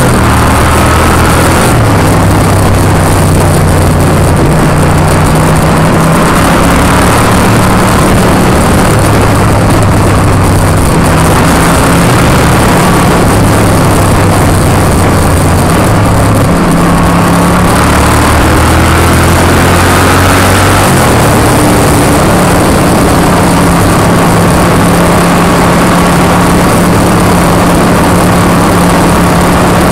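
Motorcycle V-twin engine running at road speed under heavy wind rush on the microphone, its note stepping up and down several times with throttle and gear changes.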